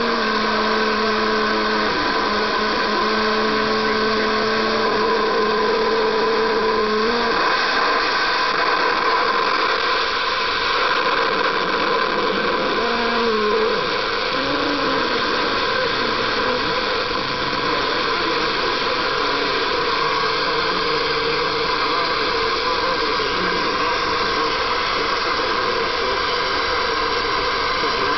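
Portable FM radio hissing with static as it picks up a homemade micro FM transmitter, with low steady tones that bend as hands move over the bare transmitter circuit. The tones rise and break off about seven seconds in, and short wavering tones come and go midway.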